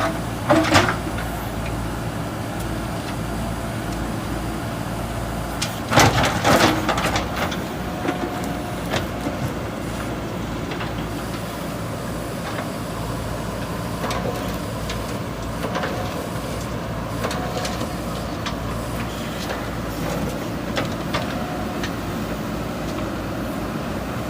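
JCB 3DX backhoe loader's diesel engine running steadily under work, with loud knocks and clanks of the bucket against broken concrete about a second in and again around six seconds in, and lighter knocks later on.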